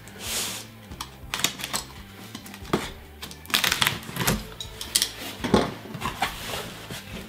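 Utility knife slicing along the packing-tape seam of a cardboard box: a run of scratchy rasps and sharp clicks as the blade and hands work the tape and cardboard, busiest and loudest a few seconds in.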